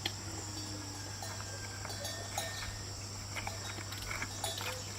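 Steady high-pitched chirring of insects such as crickets, over a low steady hum, with a few faint scattered clicks.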